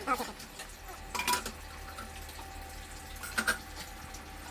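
Dishes and utensils clinking a few times as they are set into dishwasher racks, with a short ringing clink about a second in and another near three and a half seconds.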